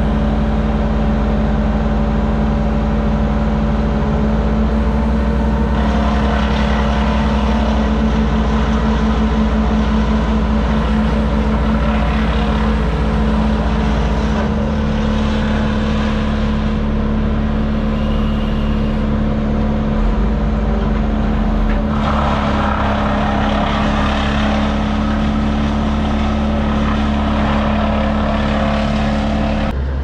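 Crane truck's diesel engine running steadily, heard from inside the operator's cab, its sound shifting a few times as the engine works.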